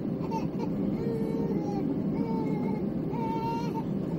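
A baby crying in drawn-out, wavering cries, the longest about a second in and about three seconds in, over the steady low rumble of an Airbus A321's cabin.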